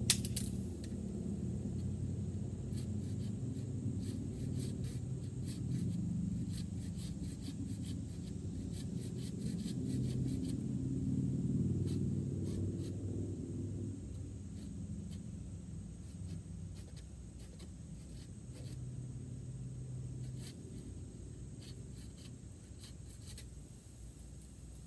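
A low hum that swells and fades slowly, with faint scattered clicks and ticks.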